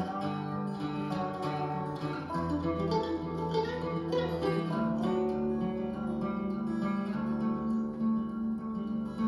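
Instrumental guitar music played back through a CLUB SANSUI MC-X77 mini component system and its three-way S-X77 speakers, picked up by a microphone in the room.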